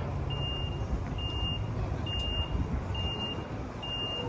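Heavy-haulage truck and rail trailer carrying a train coach, moving slowly with a low engine rumble while a warning beeper sounds a single high beep just over once a second.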